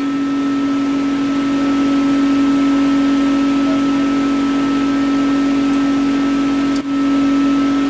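Steady machine hum with an airy whoosh from the running CO2 laser engraver setup, with a brief dip near the end.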